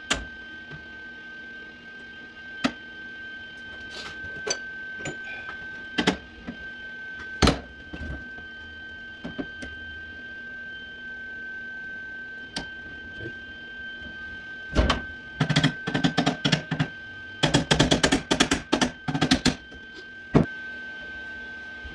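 Scattered metal knocks and clicks while a steel repair strip is fitted to the bottom of a sheet-steel door. About two thirds of the way in come two runs of quick hammer taps on the sheet metal, and a steady high tone runs underneath.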